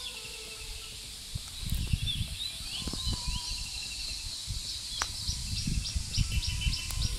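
Several wild birds calling, with short chirps and quick runs of repeated high notes, over wind gusting on the microphone.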